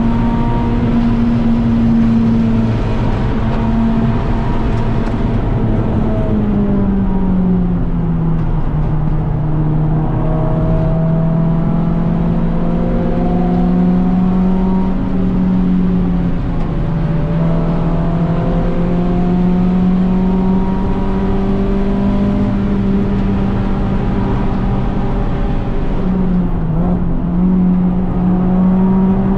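Renault Clio 197 Cup's 2.0-litre four-cylinder engine running hard at high revs. The engine note falls about six seconds in, then holds. It dips briefly twice, once in the middle and once near the end, then rises again.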